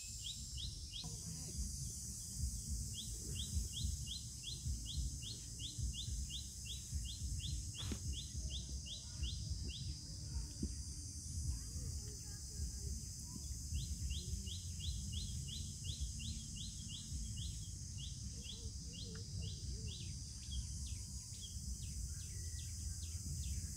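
A bird calling a rapid series of short, rising chirps, about three a second, in runs several seconds long with a pause of a few seconds between runs. Under it is a steady low rumble, with a faint high hiss above.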